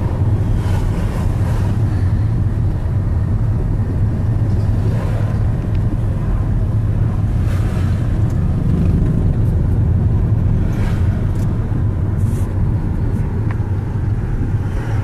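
Steady low rumble of a car driving along a city street, heard from inside the cabin: engine and road noise, with a few brief swishes of passing traffic.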